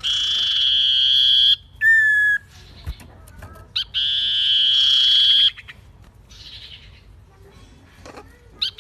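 A bird calling: two long, even, harsh notes of about a second and a half each, with a short whistled note between them.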